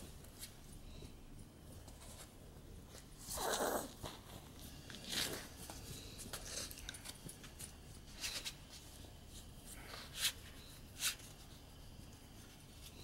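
Scattered rustling and clicking close to the microphone as a Brussels Griffon is petted and nuzzles against the person holding the camera. There is a short, louder rustle about three and a half seconds in and two sharp clicks near the end.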